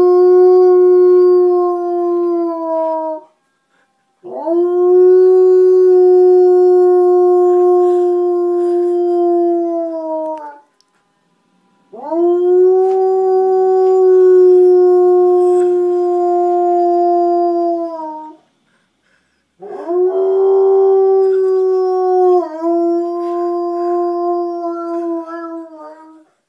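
Old English Sheepdog howling: a howl that ends about three seconds in, then three more long howls, each sliding up at the start and holding one pitch for about six seconds, with short gaps between. The last howl breaks and steps down in pitch midway.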